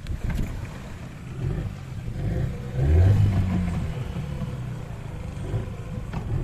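Motorboat engine running under way, its note rising and getting louder about three seconds in as it is throttled up.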